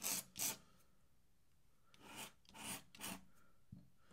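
Pen dipped in ink scratching across drawing paper in quick strokes: two rasps at the start and three more about two seconds in. A soft knock comes near the end.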